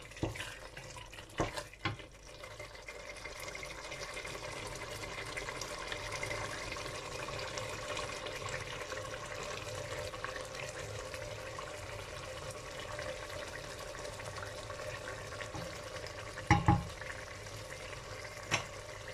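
Zucchini curry simmering in an uncovered steel pot, a steady bubbling sizzle. A plastic spatula stirs it and knocks against the pot a couple of times about a second or two in and twice near the end.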